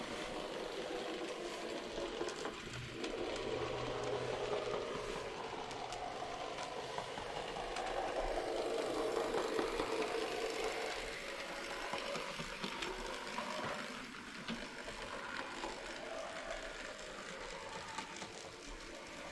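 N gauge model locomotive running along the track: a steady electric-motor whir with the light clatter of small wheels on rail, growing louder around the middle and easing off towards the end.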